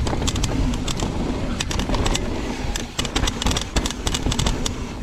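Trek Remedy mountain bike running down a rough dirt trail: wind buffets the microphone with a steady low rumble, over frequent irregular rattles and knocks from the bike on the trail chatter.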